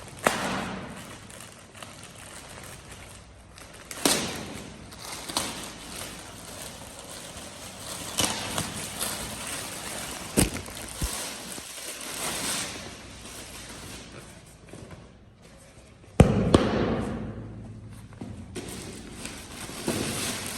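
Cricket kit and its packaging being handled by hand, rustling with scattered knocks and thumps, the loudest a sharp knock about sixteen seconds in.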